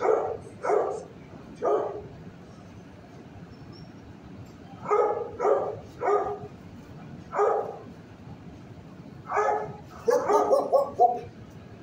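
A dog barking in single barks spaced roughly a second apart, with a pause of about three seconds after the first few, then a quick run of about six barks near the end.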